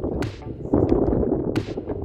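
Hiking steps on a rocky trail: two sharp clicks about a second and a half apart over a rough rumbling noise, typical of boots or a trekking pole striking rock with wind buffeting the microphone.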